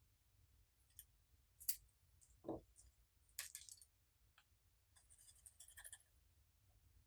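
Quiet handling sounds of small hard objects: a few sharp clicks and clinks, a dull knock about two and a half seconds in, and a short crackly rattle near the end.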